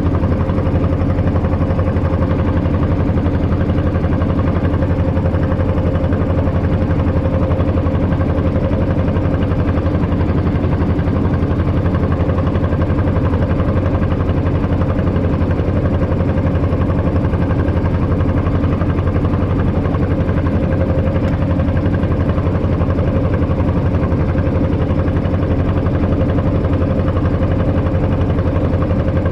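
Small wooden boat's hand-cranked engine running steadily while the boat is under way, a constant even drone with no change in speed.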